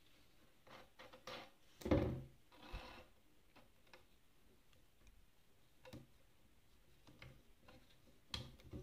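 Handling at a small plastic mini sewing machine with its motor not running: scattered light clicks, and a louder knock and rustle about two seconds in as the fabric and thread are pulled out from under the presser foot.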